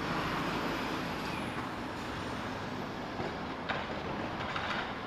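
Street traffic with an articulated lorry driving past: a steady rumble and hiss, with a few short sharp clicks in the second half.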